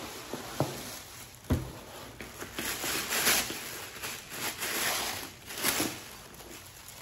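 Tissue paper rustling and crinkling as a wrapped handbag is lifted out of a cardboard box and unwrapped. There are two soft knocks about half a second and a second and a half in.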